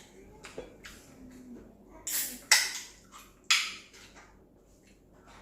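A person slurping noodles, with two loud slurps about two and three and a half seconds in and quieter mouth noises between.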